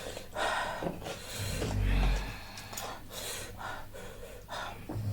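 A person's breathy gasps and exhalations, several in a row, sharp and uneven.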